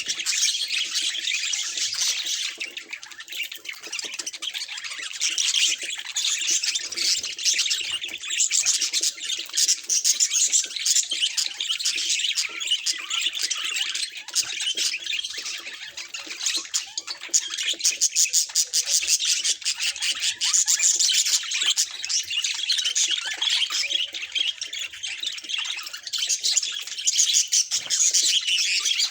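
Budgerigar chatter: continuous, dense high chirping, warbling and squawks.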